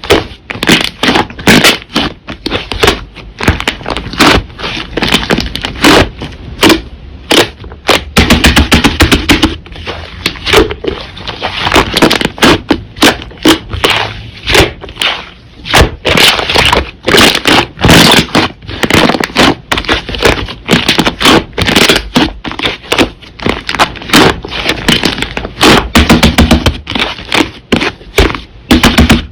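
Slime being squished and pressed by hand, making a rapid, irregular run of loud clicks and crackling pops.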